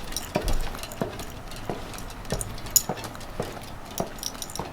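Walking footsteps on a hard surface, a steady step about every two-thirds of a second, with light metallic jingling between the steps.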